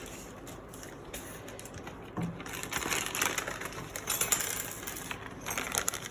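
Small plastic keyboard stabilizer parts clicking and rattling as they are handled, with rustling, becoming busier about two seconds in.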